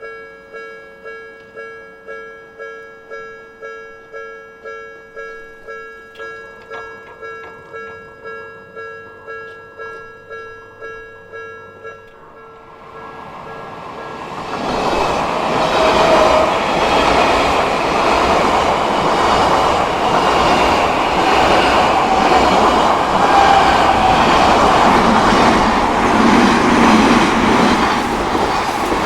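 Japanese level-crossing warning bell ringing about twice a second. About 13 seconds in, an Odakyu Odawara Line electric train comes up and passes over the crossing, its wheel and rail noise loud and steady to the end, drowning out the bell.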